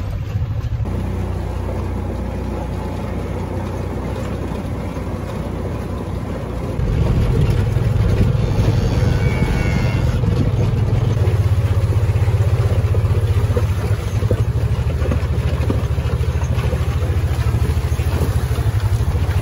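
Side-by-side utility vehicle's engine running as it drives along, a steady low drone that grows louder about seven seconds in.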